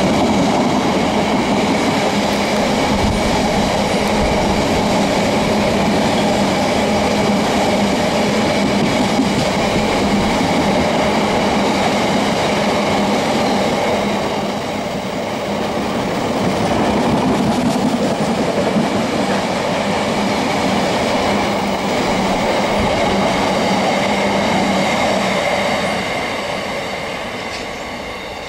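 Freight train of empty coal hopper wagons running past close by: a steady loud rumble and rattle of wheels on the track, with a high ringing held under it. The sound fades near the end as the last wagon draws away.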